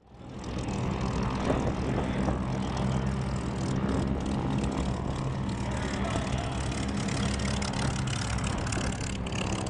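Piston-engine propeller aircraft running with a steady low drone, fading in over the first half second.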